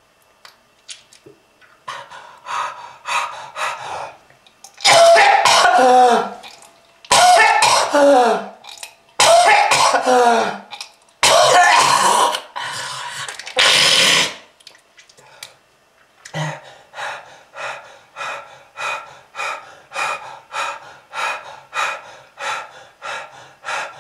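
A person coughing hard in fits. There are a few short coughs, then four long, harsh hacking coughs with a strained, falling voice, then a run of short coughs about two a second. It is presented as a heavy smoker's cough.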